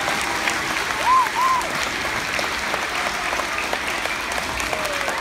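An audience of schoolchildren clapping, a dense patter of many hands, with two short high calls a little over a second in.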